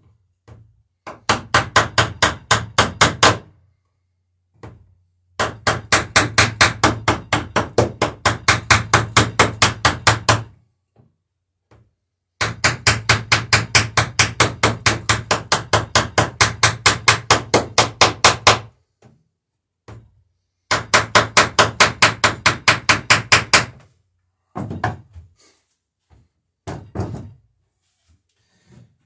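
Small hammer peening rivets on the lapped planking of a wooden dory: four fast runs of light strikes, about five a second, each run growing louder toward its end. A few separate knocks follow near the end.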